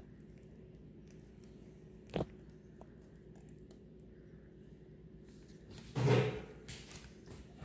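Silicone spatula stirring thick play dough in a slow-cooker crock and knocking against the pot: a sharp click about two seconds in and a heavier thud about six seconds in.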